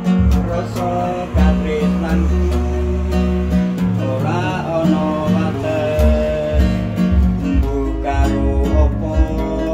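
An acoustic guitar strummed with a man singing along.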